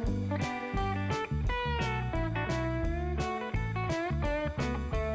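Background music: guitar playing bending notes over a steady beat of drum hits.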